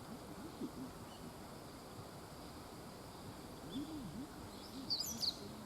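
Birds calling: low hooting notes twice, the second about four seconds in, and a short burst of high chirps near the end, over faint outdoor background noise.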